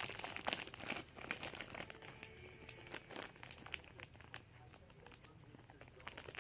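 Plastic slime packaging crinkling and crackling as it is handled and pulled at, the crinkles thickest in the first second and then sparser and quieter.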